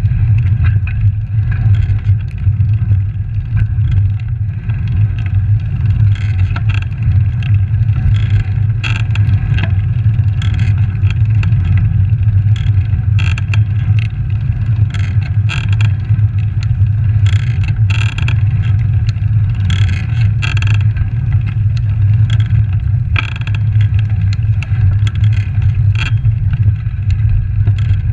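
Steady low wind buffeting on a handlebar-mounted camera's microphone while riding a road bike over asphalt. Scattered short clicks and rattles come from the bike and road surface.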